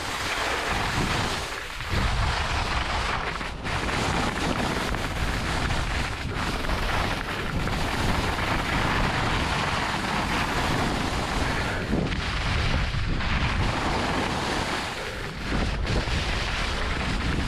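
Skis sliding and carving down groomed snow at speed, with wind rushing over the camera microphone: a steady rushing noise that briefly dips a few times.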